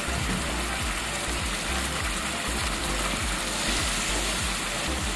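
Chicken liver and gizzards simmering in a thick sweet-soy gravy in a pan, bubbling and sizzling steadily as a spatula stirs through them. Background music plays along.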